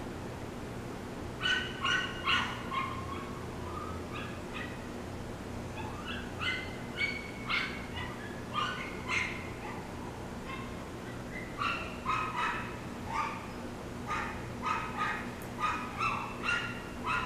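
A dog barking in short, high-pitched yips, in runs of several with pauses of a second or more between runs, over a steady low hum.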